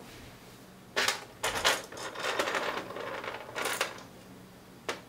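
A 3D-printed plastic bearing and its loose M3 screws clicking and rattling as they are picked up and handled on a hard desk surface, in a string of short bursts.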